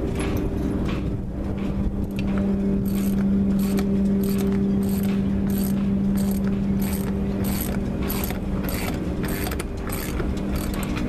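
Socket ratchet wrench clicking as it is swung back and forth, turning the nut of a threaded-rod puller that presses an old strut bearing out of a sailboat's propeller-shaft strut with very little force. The clicks come about twice a second. A steady low hum runs underneath.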